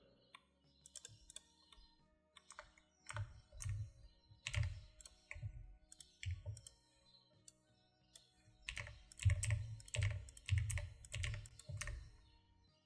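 Computer keyboard keys being pressed in irregular bursts, clustered a few seconds in and again near the end.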